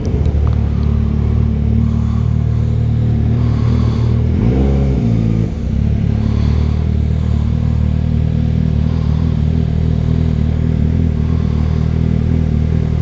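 Yamaha FZ6R's inline-four engine running steadily, with one brief rise and fall in revs about five seconds in.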